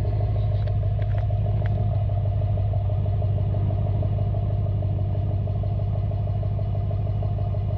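Tuned Dodge Durango Hemi V8 idling steadily just after a remote start, with a few light clicks in the first two seconds.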